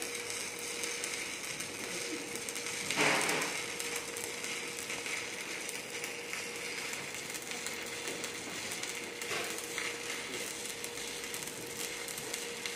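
Shielded metal arc (stick) welding: the electrode's arc crackling and hissing steadily as a bead is laid, with one louder sputter about three seconds in.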